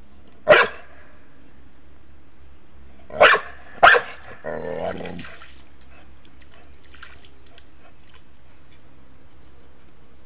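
An 8-month-old dog barking three times, the second and third barks close together, in a high voice that still sounds like a puppy's. After the third bark comes a lower, drawn-out call lasting about a second.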